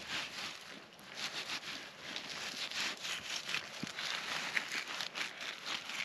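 Flexible fillet knife cutting a crappie fillet: soft, irregular scraping and crackling.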